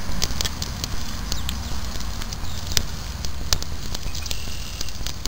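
Open plum-wood fire crackling under a grill grate: irregular sharp pops and snaps over a steady low rumble.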